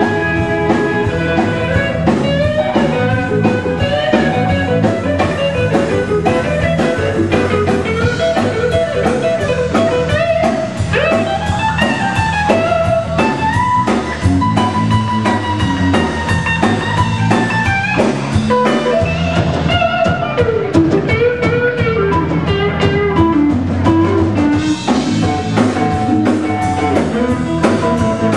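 A live blues band playing: electric guitar lead with bending, sliding notes over bass and drums.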